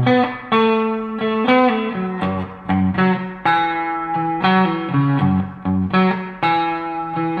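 Electric guitar played through an EVH 5150 EL34 valve amp on its clean channel: a bluesy run of single notes and chords, each note picked and left to ring out, a new one about every half second.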